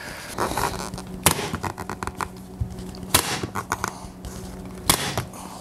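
Staple gun firing three times, sharp snaps about two seconds apart, driving staples through a vinyl seat cover into a plywood seat board, with rustling of the vinyl as it is pulled tight between shots.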